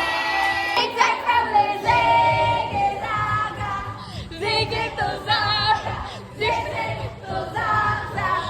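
Background music: a song with a high sung voice holding wavering notes, with a low beat coming in about two seconds in.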